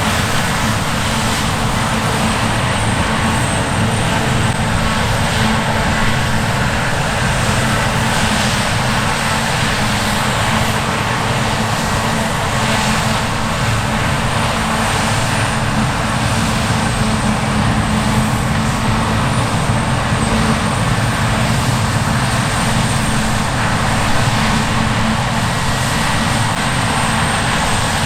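Large diesel harvest machinery running steadily: a continuous engine drone with a deep hum and broad mechanical noise that holds level throughout.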